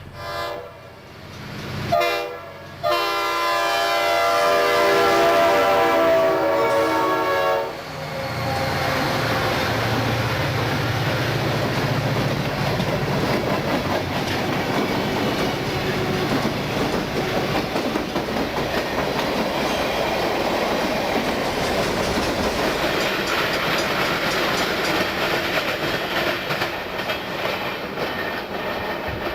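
Diesel freight locomotive's multi-note air horn sounds two short blasts and then one long blast ending about eight seconds in. The locomotive and its train then pass, with the engine's low rumble and the cars' wheels clacking over rail joints.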